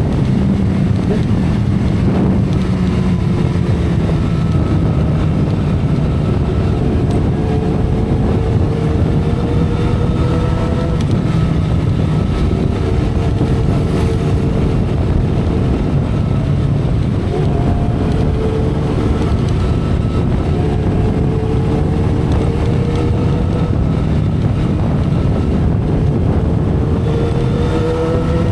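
2012 Kawasaki Ninja ZX-10R's inline-four engine running at expressway speed, its note slowly rising and then falling back several times, under heavy wind noise on the microphone.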